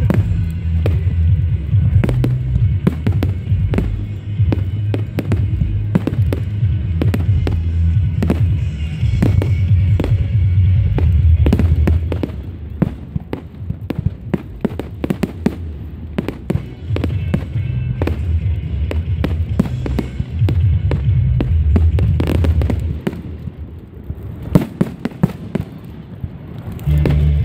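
Aerial fireworks bursting: many sharp bangs and crackles in quick succession, over music with a heavy bass.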